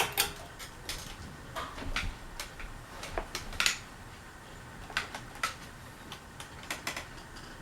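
Fasco Gulf Stream ceiling fan running on medium speed, with scattered light clicks and ticks at irregular intervals. The fan wobbles, and the owner thinks the little noise comes from the motor rather than from the screws vibrating.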